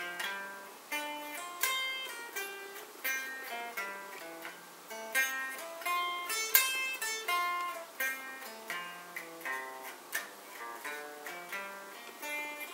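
Electric guitar played slowly as an arpeggio exercise. Single notes are picked one at a time, a few a second, each ringing briefly into the next.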